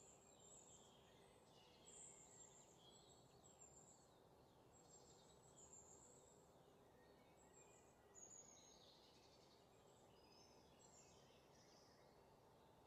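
Faint sizzling of batter-coated pakodas deep-frying in hot oil, heard as scattered high crackles over a low steady hum.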